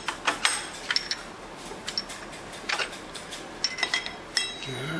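Small steel tools clinking as they are handled: irregular sharp clicks, some with a brief metallic ring.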